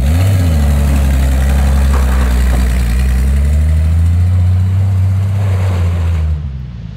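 1966 Ford F350 truck's engine running as the truck drives through snow: a deep, steady drone with a brief rise in pitch about half a second in. It drops away about six seconds in.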